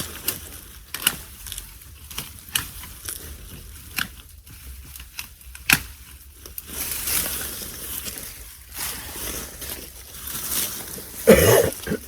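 Pittosporum branches being cut with loppers: a string of sharp snips and snaps, then a rustle of leafy branches being pulled and moved. A short vocal sound near the end.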